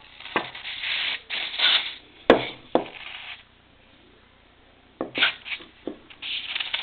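Aerosol spray can hissing in several short bursts as cleaner is sprayed into the carburettor's passages, with a few sharp clicks and knocks from handling the carburettor in between.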